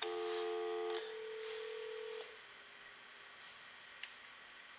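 Cordless phone handset sounding a steady two-tone dial tone for about a second, then a single steady tone for about another second, then a faint click about four seconds in. The phone is working on its newly built replacement nickel-metal hydride battery pack.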